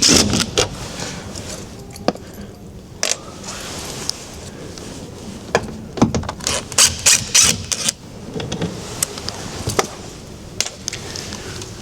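Cordless drill-driver backing out the Phillips screws that hold a van door speaker, among a run of clicks and rattles of screws and plastic trim being handled. The clicks bunch together more than halfway through.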